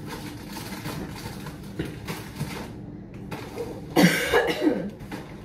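Groceries being handled and put away in a kitchen: rustling with a few light knocks. About four seconds in comes a brief, loud vocal sound from a person, like a cough.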